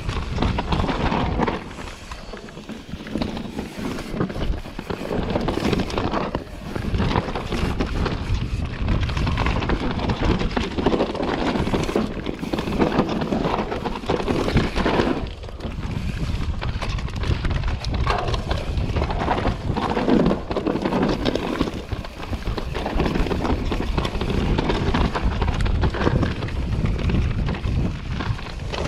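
Mountain bike descending rocky, rooty dirt singletrack: tyres rumbling and crunching over the ground, with constant clattering and rattling from the bike as it hits rocks and roots. Wind buffets the camera's microphone throughout.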